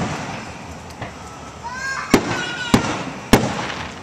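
Aerial firework shells bursting: three sharp bangs about half a second apart in the second half, each trailing off briefly, with a short rising whistle just before the first.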